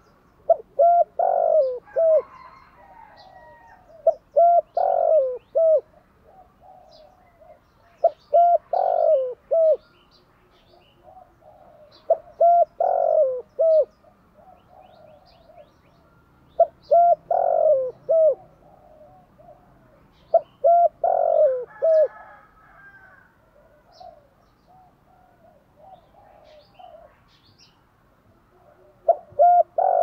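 Spotted dove cooing, in the voice style Vietnamese dove keepers call 'giọng thổ'. It repeats a short phrase of several coos about every four seconds, seven phrases in all, with a longer pause before the last.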